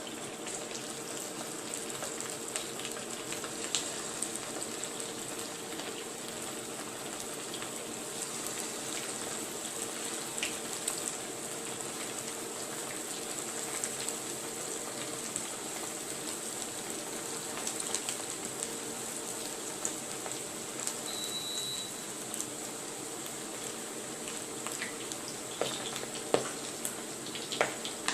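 Beef balls deep-frying in hot oil: a steady sizzle with scattered sharp pops and crackles.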